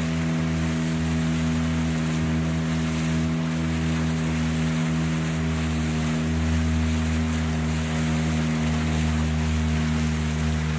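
Small river boat's motor running at a steady speed, a constant drone, with water and wind rushing past as the boat moves along.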